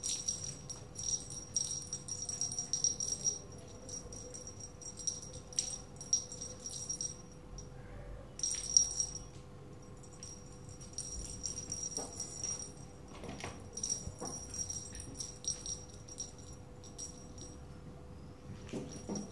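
Small bell on a cat's wand toy jingling as the toy is shaken and batted by a kitten, on and off in bursts with short pauses between.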